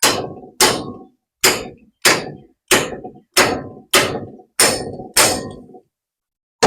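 Hammer striking metal nine times in a steady rhythm, about one blow every 0.6 seconds, each blow clanging and ringing briefly. The blows are beating on the stuck threaded gland of a hydraulic cylinder to break it loose.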